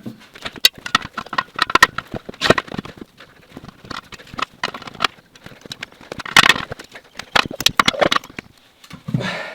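Backhoe tire bead being forced onto a steel rim by hand, with vice grips clamped on the rim: a run of irregular metal knocks, clanks and scrapes, the loudest about six and a half seconds in.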